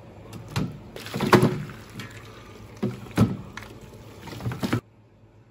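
Soy-braised pork bones and their braising liquid being tipped out of a pressure-cooker pot onto a steel tray: a series of knocks and clatters of bone and metal pot against the tray, with sloshing sauce. The sounds stop abruptly near the end.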